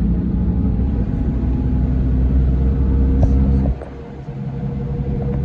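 Scania K410 coach's 13-litre inline-six diesel engine running steadily with a deep rumble; about two-thirds of the way in the low rumble drops away suddenly, then slowly builds back up.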